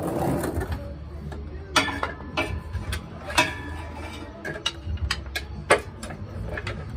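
Metal hand tools clicking, tapping and knocking on a truck's transmission and undercarriage, in irregular sharp clicks over a steady low hum.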